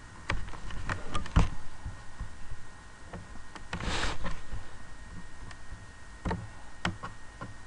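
Scattered clicks and knocks of a computer mouse being handled and clicked while a web page is scrolled, with a short hiss about four seconds in.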